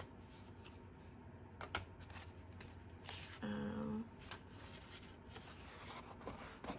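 Paper pages of a spiral-bound planner being turned and handled: faint papery rustles and light ticks as sheets and a sticker insert are flipped against the metal coil.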